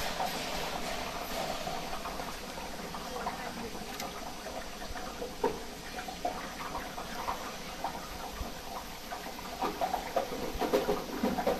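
Hot oil in a round batch snack fryer sizzling and bubbling hard as a basket of raw dough pieces is tipped in at the start, settling into a steady frying hiss.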